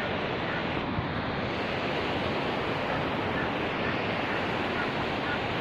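Fast mountain river rushing over boulders: a steady noise of white water.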